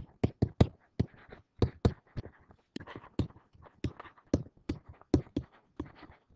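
A stylus writing by hand on a pen-input surface: a quick, uneven run of sharp tapping clicks, about three or four a second, with faint scratching between strokes.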